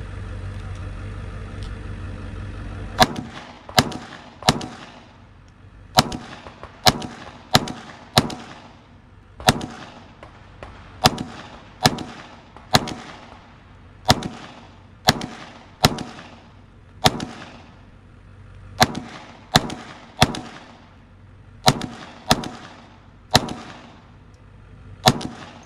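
Glock 45 9mm pistol firing slow, aimed single shots: about two dozen sharp cracks, each with a short echo, spaced roughly a second apart. Firing begins about three seconds in, after a steady low hum.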